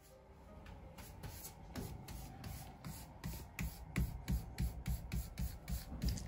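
Small foam paint roller worked back and forth over a painted surface, a rhythmic rubbing of about three to four strokes a second that grows louder.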